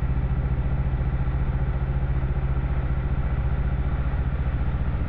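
Motorcycle engine running at a steady, low-pitched note as the bike rolls along, heard from on board the bike.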